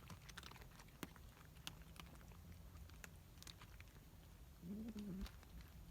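Near silence, with faint scattered clicks and one brief low, wavering pitched sound about five seconds in.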